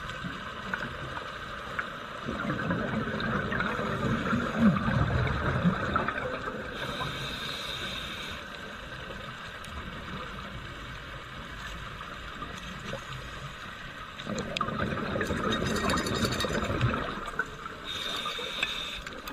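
Scuba diver breathing through a regulator underwater: two long spells of gurgling exhaled bubbles, each followed a little later by a short hiss of inhaling through the regulator, over a steady faint crackle.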